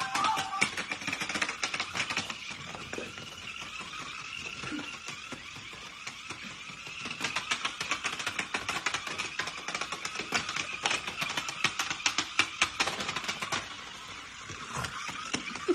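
Fast, uneven clicking and rattling from a small dog shaking and dragging a light-up toy on a cord, louder in spells.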